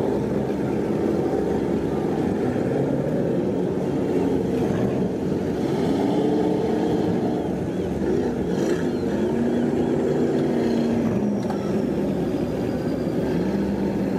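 Motors of several fishing skiffs running close by, a steady rumble whose engine note rises and falls a few times as the boats manoeuvre and pull the nets.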